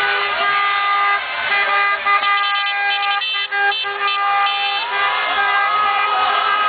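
Many car horns honking at once in long held blasts, with a run of rapid short toots about halfway through.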